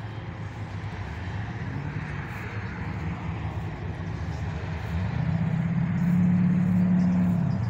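A vehicle engine running with a steady low hum, growing louder about five seconds in.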